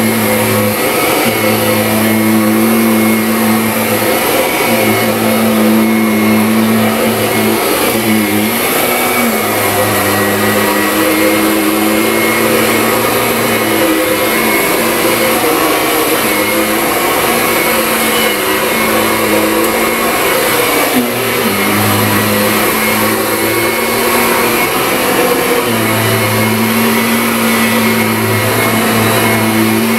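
Kirby Ultimate G-Series Diamond Edition upright vacuum cleaner running steadily while it is pushed back and forth over carpet. The loud motor hum wavers slightly with the strokes.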